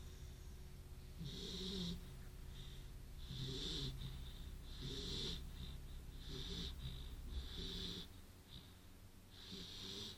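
Beagle snoring in its sleep: about six snores at an even pace, one every second and a half or so, each with a high hiss over a low throaty rattle.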